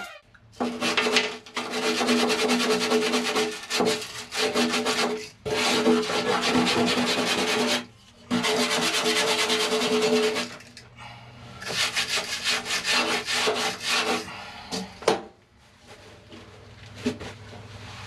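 Scraping and rubbing work on the metal of a boat's windlass fitting, in four runs of two to three seconds each. Quieter, broken scraping follows near the end.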